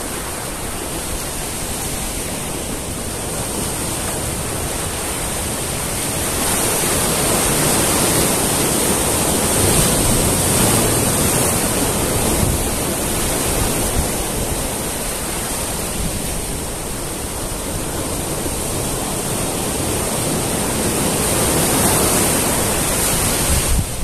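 Sea waves breaking and washing in over rocks onto a sandy beach. The surf swells louder about six seconds in, eases off, then builds again near the end.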